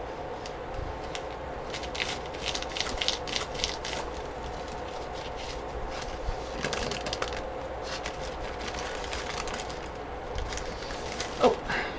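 Scratchy rustling and clicking of paper being handled and worked by hand, in irregular clusters, over a faint steady hum.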